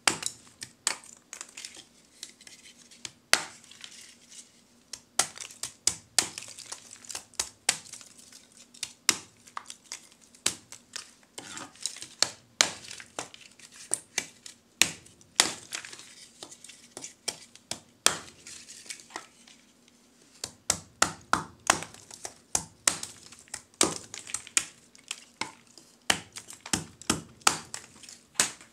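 Lumps of charcoal being chopped into small pieces with a blade: an irregular run of sharp, dry cracks, a few a second, as the cut pieces clatter onto the pile.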